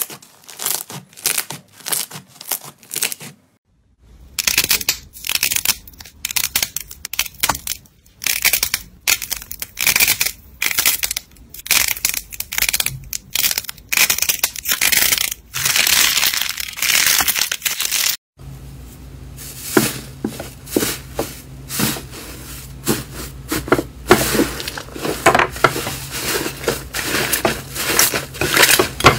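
Hands squeezing, stretching and kneading fluffy slime: dense, irregular crackling and popping as air pockets burst. Abrupt cuts about four and eighteen seconds in move to another batch, and after the second cut a steady low hum runs under the crackling.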